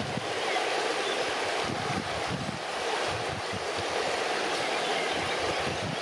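Shallow river water rushing and babbling over rocks and riffles in a steady wash.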